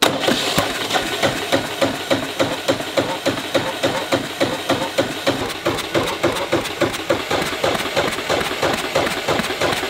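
Air-cooled Kohler diesel engine running at a steady idle on a quick test run, with a rapid, even chugging beat.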